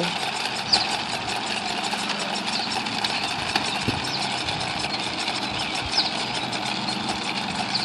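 Steady engine-like running hum with a constant level throughout, and a few faint, brief high chirps.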